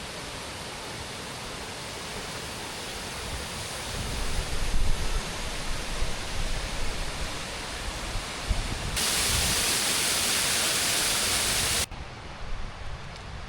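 Steady rush of a waterfall, with wind buffeting the microphone in low rumbles about four to five seconds in. About nine seconds in a louder, hissier rush of water starts suddenly and cuts off abruptly some three seconds later.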